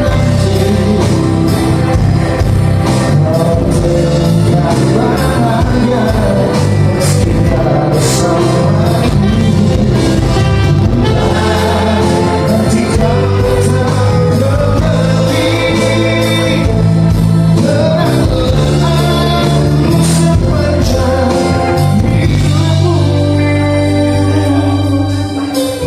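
A live band playing a song with a singer, drums and guitar, ending near the close.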